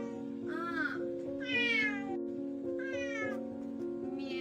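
A cat meowing three times, short calls about a second apart, over background music with sustained notes.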